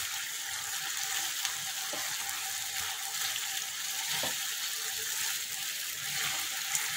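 Thick chilli sauce sizzling in a nonstick frying pan as fried potato fingers are stirred through it with a silicone spatula, a steady hiss with a few soft knocks.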